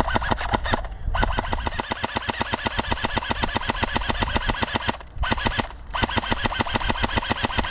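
Airsoft electric gun (AEG) firing on full auto: a rapid, even rattle of shots with the gearbox whirring, in long bursts broken by short pauses about a second in and near five and six seconds.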